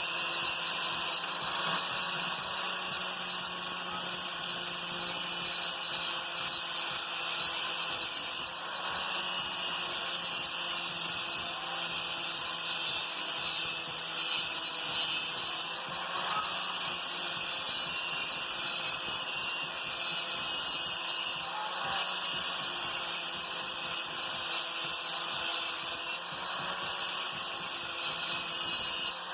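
Cheap handheld electric grinder running against a steel lawn mower blade, sharpening its dull cutting edge. A steady high-pitched grinding, with a brief dip every several seconds as the grinder comes off the edge between passes.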